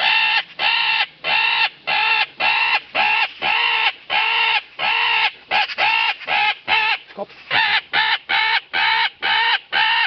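A magpie-in-distress predator call sounding a fast, unbroken series of squawks, about two a second, quickening briefly past the middle and pausing shortly around seven seconds in before carrying on.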